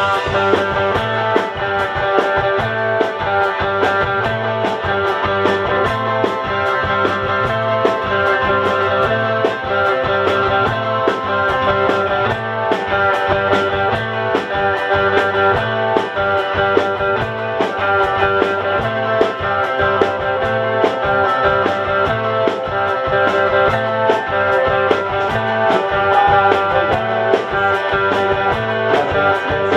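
Live rock band playing: two electric guitars and an electric bass over a drum kit keeping a steady beat.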